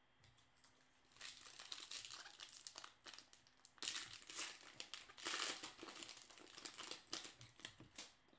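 A 2016 Bowman baseball card pack being torn open by hand, its wrapper crinkling and crackling in irregular bursts that start about a second in.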